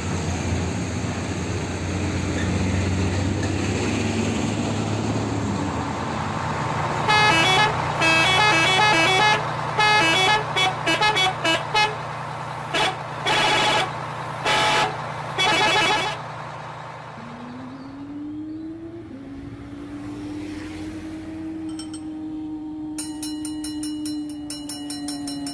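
Cartoon traffic sound effects. A vehicle engine rumbles for several seconds. A multi-tone musical bus horn then plays a quick run of short notes at changing pitches, followed by several longer separate honks. A quieter low hum with a rising tone follows.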